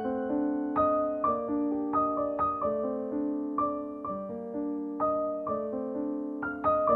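Background music: gentle solo piano, about two notes a second, each struck and left to ring and fade.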